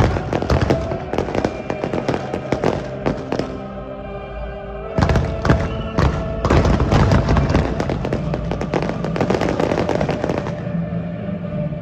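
Fireworks display: many rapid bangs and crackles from aerial shells, over music playing. The bangs thin out for about a second near four seconds in, then come back densely.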